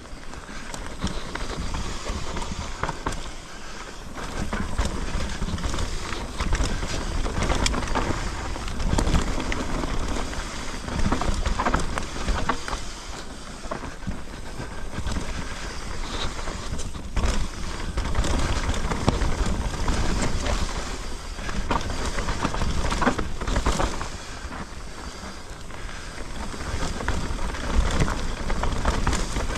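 Mountain bike riding down a dirt trail: tyres rolling over the ground with a steady rumble, and the bike knocking and rattling over bumps, swelling louder and easing off as the trail changes.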